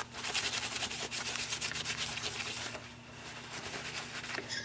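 Rapid scraping and rubbing of hardened thermal paste off a copper graphics-card heatsink, with quick repeated strokes for about two and a half seconds, then fainter scratching.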